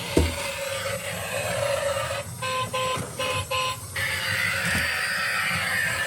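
Toy vehicle's electronic horn beeping four times in quick succession, each a short two-tone toot.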